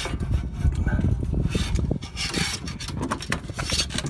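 Irregular rubbing, scraping and knocking as a screwdriver is fished out of an HVAC return duct.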